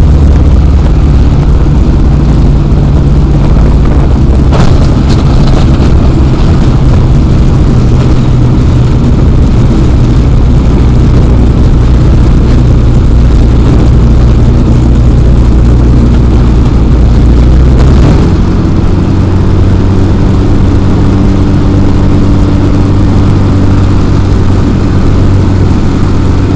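X-Air microlight's engine and propeller running steadily and loud. About eighteen seconds in, the engine note changes abruptly to a new steady pitch.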